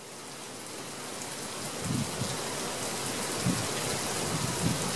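Steady rain from a thunder shower falling on a taut Sil Argon fabric tarp and the lawn, fading in over the first couple of seconds, with a few low thuds.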